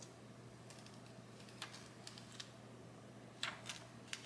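Faint crackling and small clicks of a clear plastic DTF transfer film being peeled off a heat-pressed hoodie print, a few scattered ticks with the loudest pair about three and a half seconds in, over a steady low hum.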